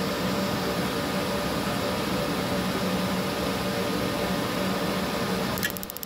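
Atwood RV furnace's blower running with a steady hum during the pre-purge. Near the end the gas valve clicks open and the spark igniter starts ticking rapidly and evenly: the replacement control board is now producing a spark.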